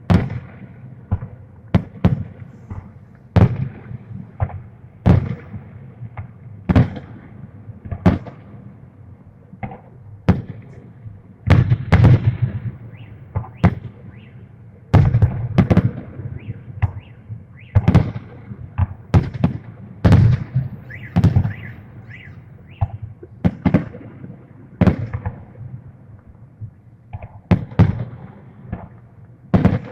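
Festive fireworks salute: a steady series of shell bursts going off one after another, sharp bangs with rolling booms, every second or so, with a denser, louder run of bursts in the middle.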